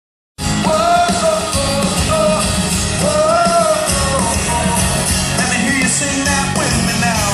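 A live pop-rock band plays with a male lead vocalist singing over it; the sound starts suddenly just after the beginning.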